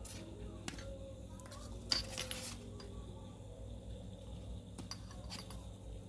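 Light metallic clicks and clinks of small metal parts and tools being handled, with one sharper clatter lasting about half a second, about two seconds in.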